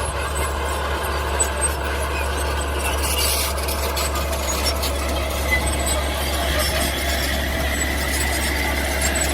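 Mini bulldozer working: steady engine noise with a high squeal over it.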